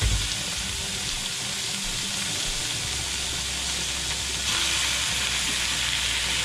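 Raw chicken pieces sizzling in hot oil with sautéed onion, garlic and ginger in a stainless steel pot: a steady frying hiss that gets louder about four and a half seconds in as more chicken goes in. A brief low thump comes at the very start.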